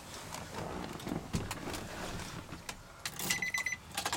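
Rustling and handling noise, then near the end a rapid series of short, high electronic beeps from the Nissan Titan's dashboard warning chime as the key is worked in the ignition.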